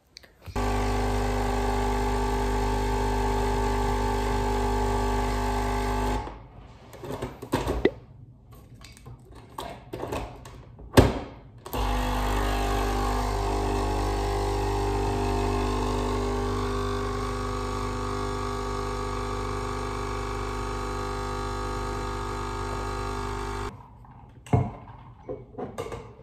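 Automatic coffee machine running: a steady mechanical hum for about six seconds, then a few knocks and one sharp click, then a second steady hum for about twelve seconds that slowly eases off.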